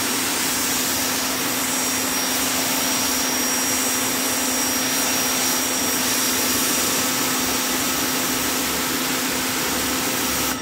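Greenworks 1700-PSI electric pressure washer running, its motor and pump giving a steady hum under the hiss of the water jet striking concrete. It cuts off suddenly at the very end.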